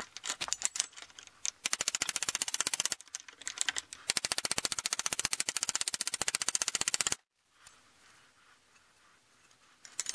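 Ball-peen hammer beating on a dented sheet-steel electric-motor fan shroud over a bench vise, knocking the dents out: rapid, even metallic strikes about a dozen a second. A short run, a pause of about a second, then a longer run of about three seconds that cuts off suddenly.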